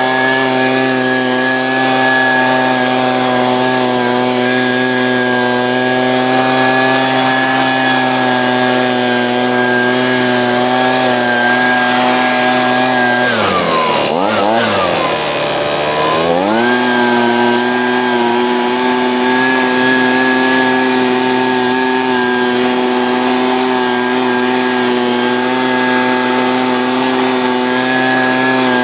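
Leaf blower's small engine running at full throttle, blowing debris off a roof. About halfway through the throttle is eased off twice in quick succession, the pitch dropping and rising back, before it settles at full speed again.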